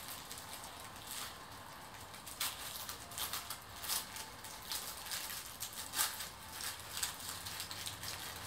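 Tissue paper rustling and crinkling as it is handled and pulled at around a handbag. The crinkles come irregularly, the sharpest about four and six seconds in.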